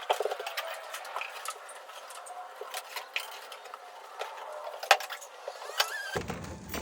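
Scattered light metallic clinks and sharp knocks, with a short squeak near the end.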